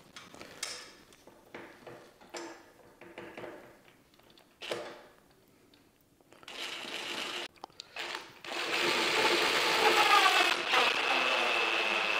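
Light handling clicks and rustles, then about eight and a half seconds in an electric motor starts whirring steadily and loudly, with a high steady whine and a brief rising pitch.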